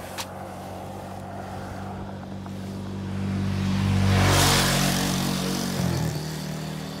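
A motor vehicle's engine passing close by on the road. It grows louder to a peak with tyre and wind rush about four seconds in, then drops in pitch as it goes past near six seconds.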